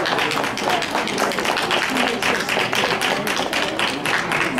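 Audience applause: many hands clapping in a dense, irregular patter.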